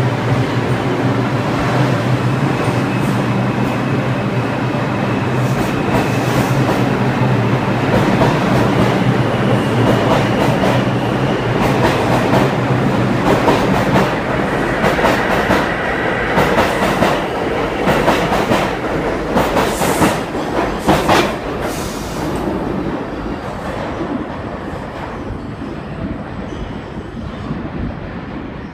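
New York City Subway train pulling out of a station, starting with a steady hum, then picking up speed with a faint motor whine and a run of wheel clacks midway through. The sound fades away steadily as the train goes into the tunnel near the end.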